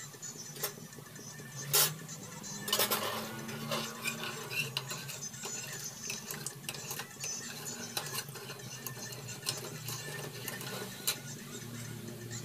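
Metal ladle stirring dal in a pressure cooker, clinking and scraping against the pot, with scattered sharp clinks; the loudest comes just under two seconds in, and a quick run of clinks follows about a second later.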